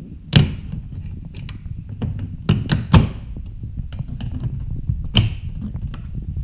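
Plastic retaining clips of a Peugeot 301 door trim panel snapping loose as the panel is pried off with a screwdriver: a sharp crack about half a second in, three in quick succession around three seconds in, and another about five seconds in, over a steady low rumble.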